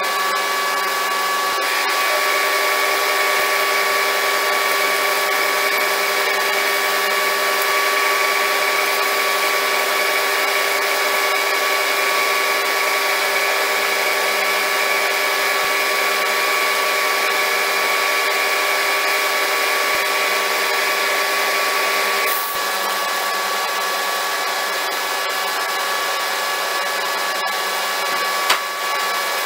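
Small electric motor running steadily with a high whine, like a handheld power tool at work. Its tone shifts slightly about two seconds in and again about twenty-two seconds in, and there is a short click near the end.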